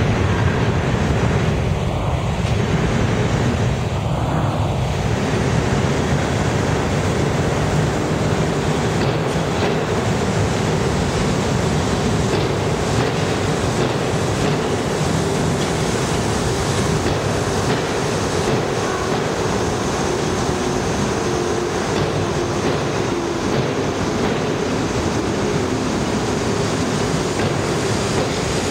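New York City Subway train entering an underground station and rolling past the platform: a steady rolling noise of wheels on rails that echoes in the station.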